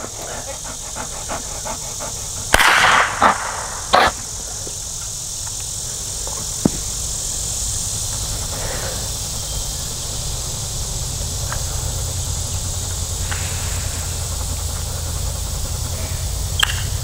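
A chocolate Labrador panting in the heat, with a couple of loud sudden noises about two and a half and four seconds in, over a steady high insect hiss and a low rumble.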